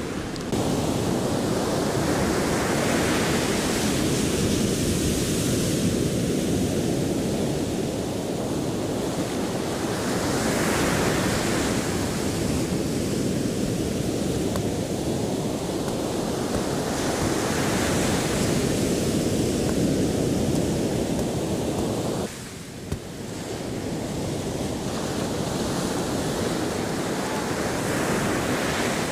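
Ocean surf breaking on a beach, swelling and falling back in slow waves about every seven seconds. The sound dips briefly about three-quarters of the way through.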